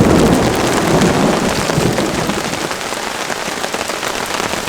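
Heavy rain falling steadily, a dense spatter of drops close by, with a low rumble underneath.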